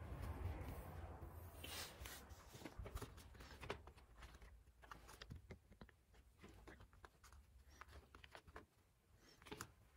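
Faint rustling and crinkling of folded paper as a handmade pop-up paper book is handled and opened, with scattered soft clicks throughout.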